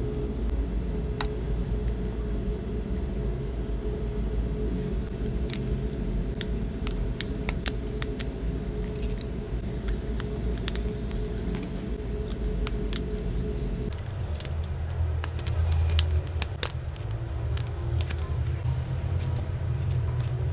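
Scattered light clicks and snaps from a phone being handled while thin rubber bands are stretched around it, over a steady low hum that changes abruptly about two-thirds of the way through.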